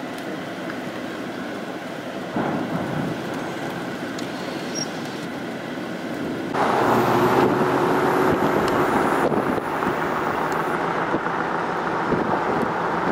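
Steady rushing noise of wind and a running vehicle. It steps up in level about two seconds in, and jumps louder again about six and a half seconds in.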